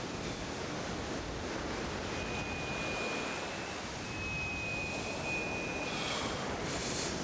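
Steady noise of surf and wind, and from about two seconds in, a thin, steady high whistle lasting about four seconds: a taut surf-fishing line whistling in the wind under the strain of a hooked shark.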